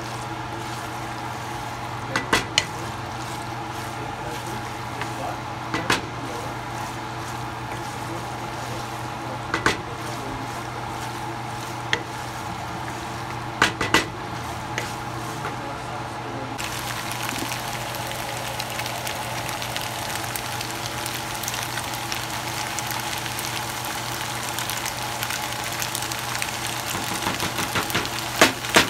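Pasta and mince sauce sizzling in a frying pan while a wooden spatula stirs and tosses it, the spatula knocking against the pan now and then, a quick few knocks near the end. A steady low hum runs underneath.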